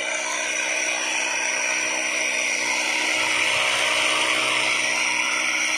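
Small motor-driven miniature flour mill running steadily, turned through a rod by a toy tractor and grinding wheat into flour: a continuous whirring grind with a faint motor hum beneath.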